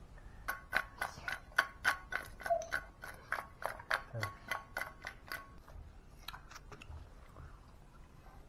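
Grilled tandoori chicken pieces tossed in a stainless steel bowl to coat them with spices: a fast run of knocks, about four a second, with the bowl ringing, stopping about five and a half seconds in. A few fainter clicks follow.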